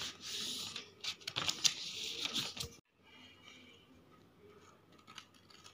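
A sheet of paper rustling and crinkling as it is folded and creased by hand, with a few crisp ticks. It stops abruptly just before three seconds in, leaving only faint room noise.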